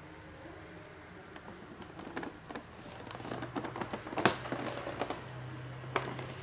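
Cardboard box handled and turned in gloved hands: rustling and scraping with light taps, the loudest a sharp knock about four seconds in, and a low steady hum through the second half.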